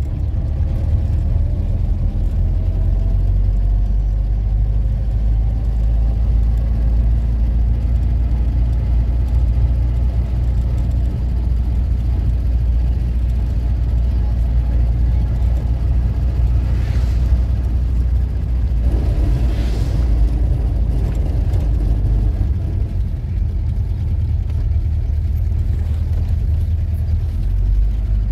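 A motor vehicle running steadily, a low drone with a steady hum, with brief louder rushes of noise about two-thirds of the way through.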